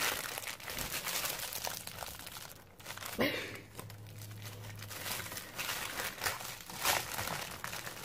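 Plastic bubble mailer crinkling and rustling as it is pulled and torn open by hand.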